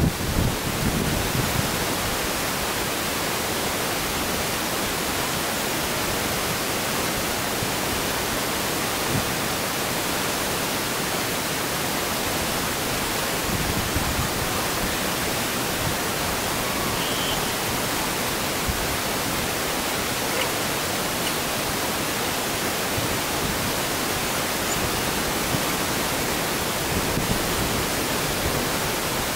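Steady, even hiss of noise that does not change, with no clear events in it.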